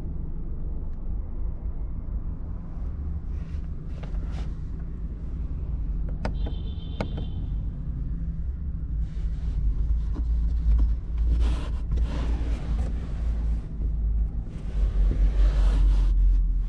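Toyota Corolla idling, a steady low rumble heard from inside the cabin. A few sharp clicks and a short high tone come about six to seven seconds in, with brief rustling bursts later on.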